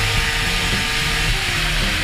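Rock music with heavily distorted guitars over a bass line that steps from note to note every fraction of a second.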